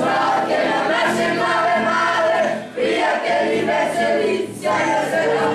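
Group of children singing a song together in chorus, with two short breaks between phrases.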